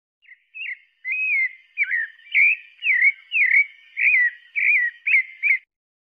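Pale-breasted thrush (sabiá-parda) singing: a string of about ten short whistled phrases that slide up and down in pitch. The song stops suddenly a little before the end.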